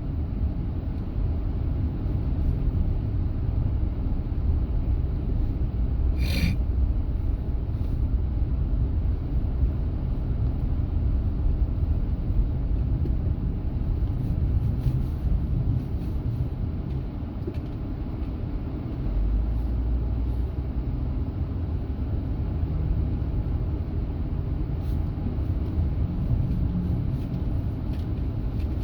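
Steady low rumble of a car being driven, engine and tyre noise heard from inside the cabin, with one brief sharp click about six seconds in.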